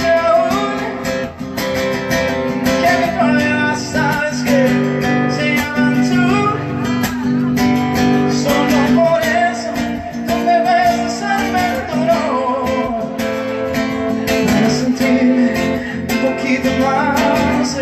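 Acoustic guitar strummed and picked as live accompaniment, with a man singing a melody over it into a microphone.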